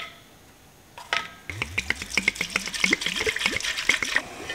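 A rapid run of small clicks and taps with liquid sounds, as of ingredients going into a pot and being stirred, starting about a second and a half in and stopping shortly before the end.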